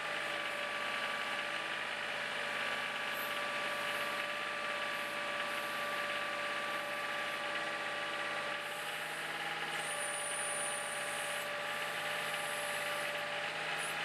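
Kubota tractor's diesel engine running steadily while its backhoe digs and curls up a bucket of dirt.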